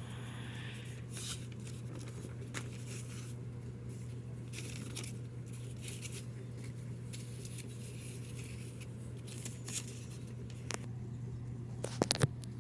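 Hands handling packaging during an unboxing: light rustling and scraping over a steady low hum, with a quick cluster of sharp clicks near the end.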